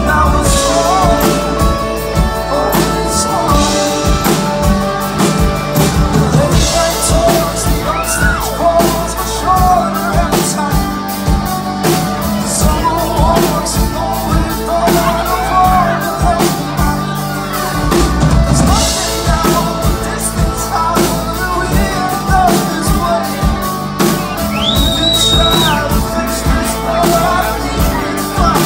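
Live rock band playing: a male lead vocal sung over guitars, bass guitar and a drum kit. A brief high whistle sounds near the end.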